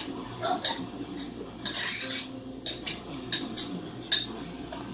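A small glass cup and kitchenware clinking and tapping against a plastic blender jar and the tabletop: a scattering of light knocks, the sharpest near the end.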